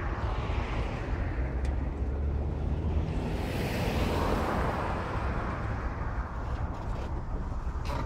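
Wind rumbling steadily on the microphone, with a rush of noise that swells to a peak about halfway through and then fades.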